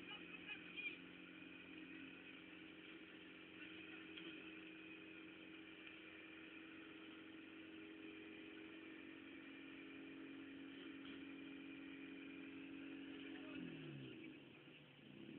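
Faint car engine held at steady revs for a long stretch. About 13.5 s in the revs drop sharply, then climb again near the end.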